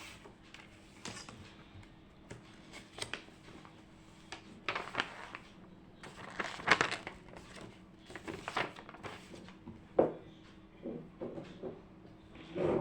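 Irregular rustles and light knocks of small objects and paper being handled at a desk, over a faint steady hum.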